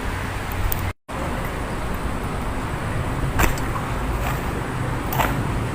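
Steady outdoor background rumble, cut off for a split second about a second in, with two short sharp clicks later on.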